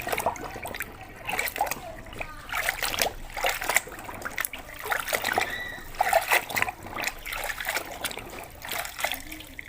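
Water splashing and trickling in a tub as a muddy toy is dunked and rubbed clean by hand, with irregular small splashes and knocks.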